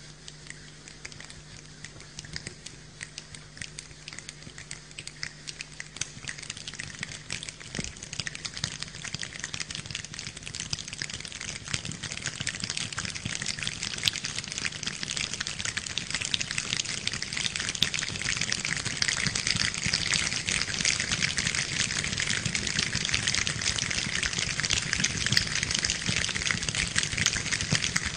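Many people imitating rain with their hands: a dense patter of finger snaps and clicks, like falling rain, that thickens and grows steadily louder.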